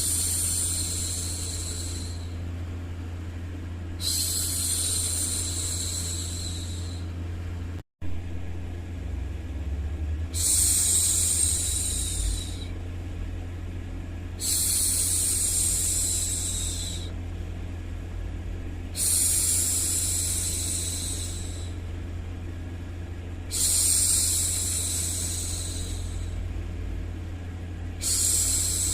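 A woman's voice making long hushing 'shhh' sounds, seven in a row, one every four to five seconds, over a steady low rumbling noise. The sound drops out for an instant about eight seconds in.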